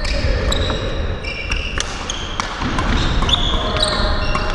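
Badminton doubles rally: shoes squeaking on the wooden court floor in many short chirps, footfalls thudding, and sharp clicks of rackets hitting the shuttlecock.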